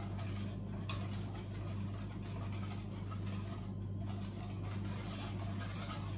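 Wire whisk stirring egg-and-butter batter gently in a stainless steel bowl, giving a soft, irregular scraping and patter, over a steady low electrical hum.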